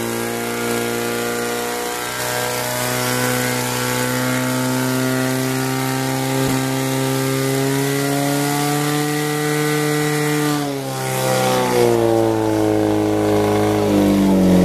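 Portable fire pump engine running hard at high revs while it pumps water to the hose lines, its pitch creeping slowly upward. About two-thirds of the way through the revs drop briefly and then climb again, and they dip and rise once more near the end.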